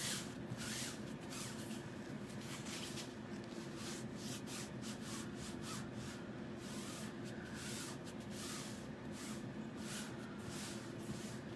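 Hands rubbing and smoothing an adhesive stencil transfer down onto a fabric pillow cover: a run of soft, irregular brushing strokes over a low steady hum.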